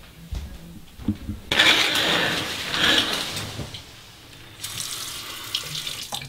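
Running water, such as a tap or shower, starting suddenly about a second and a half in. It fades after about two seconds, then runs again in a second stretch that cuts off abruptly near the end. A few soft knocks come before it.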